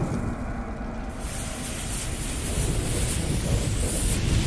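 Intro sound effects of a lit fuse and fire: a low rumble, joined about a second in by a steady sizzling hiss, growing slightly louder.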